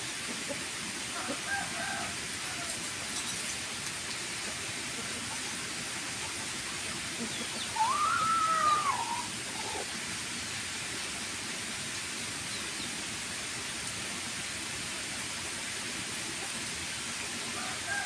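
Chickens calling: faint short clucks near the start and end, and about eight seconds in one louder call that rises and falls, about a second and a half long, over a steady hiss.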